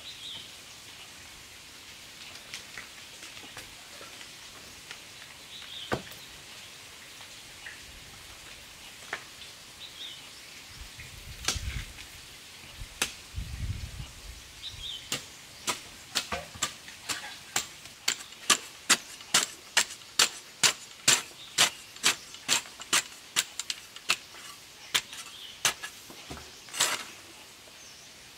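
Steel folding shovel chopping into packed dirt, a quick even series of sharp strikes about two a second. Before it come a few scattered knocks and some dull thumps.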